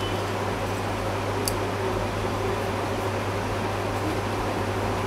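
Steady fan noise with a low electrical hum underneath, and one faint light click about one and a half seconds in.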